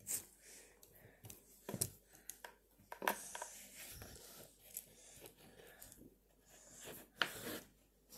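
Small plastic LEGO pieces being handled and fitted together by hand: a few sharp clicks amid soft rustling.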